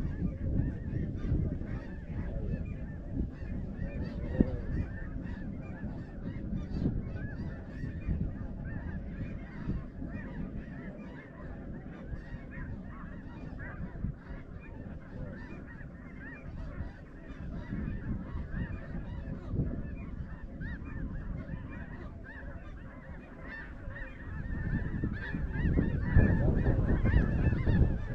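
A large flock of snow geese calling, many overlapping honks at once, growing louder near the end.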